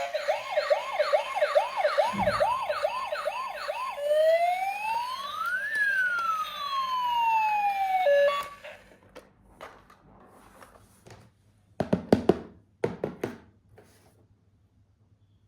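Electronic toy siren: a fast repeating rising yelp, then about four seconds in a single slower wail that rises and falls, cutting off about eight seconds in. A low thud comes about two seconds in, and after the siren stops come scattered light clicks and taps of plastic being handled.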